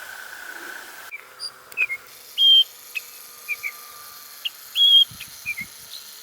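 Birds calling with short whistled notes and chirps, several held flat and high for about a quarter second. For about the first second, before a cut, a steady vehicle drone with a hum runs under them.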